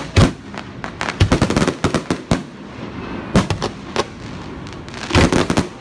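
Fireworks display: shells bursting in a rapid, irregular string of sharp bangs with crackling between them, bunched thickest about a second in and again near the end.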